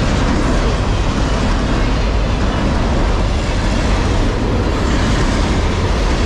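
Freight train cars loaded with open-top containers rolling past close by. Their steel wheels on the rails make a loud, steady rolling noise.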